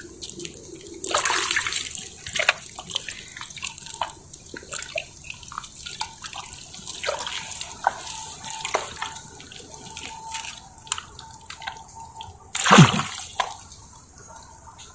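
Wet mud squelching and water sloshing and dripping as a bare arm works deep in a flooded mud crab burrow. There are many small wet splats and sucks, with a louder wet squelch near the end.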